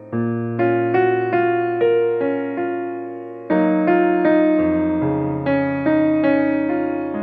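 Background music: a piano-like keyboard playing chords and melody notes, each note struck and fading, a new note or chord about every half second.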